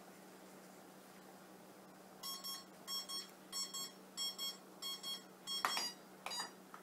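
Cooking timer beeping in short repeated double beeps, about one and a half a second, signalling that the five-minute simmer is over. Two brief sharper sounds follow near the end as the beeping stops.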